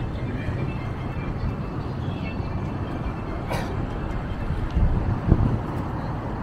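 City street ambience: a steady low rumble of traffic, with a sharp click about three and a half seconds in and a low thump about five seconds in.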